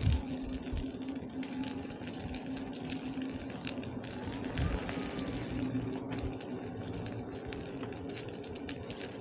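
Riding an InMotion V10F electric unicycle: a steady hub-motor hum under wind and tyre noise, with scattered light clicks and a few low thumps.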